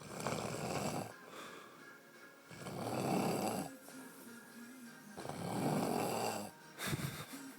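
A passed-out man snoring heavily: three long snores, one about every two and a half seconds, with a short sharp burst of breath near the end.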